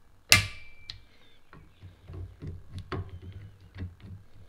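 Wheeler torque screwdriver being worked on a scope-base screw: one sharp click about a third of a second in, then a run of lighter, irregular ticks.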